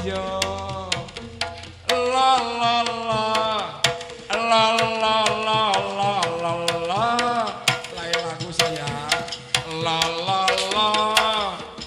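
Live jaranan ensemble music: kendang hand drums beating sharp strokes under a melodic line that slides and bends in pitch.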